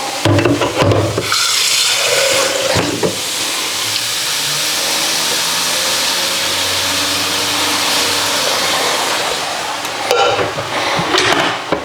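Oyster mushrooms frying in a hot pan as water is added: a few knocks at first, then a steady sizzling hiss of water and steam that runs most of the way through, with more knocks near the end.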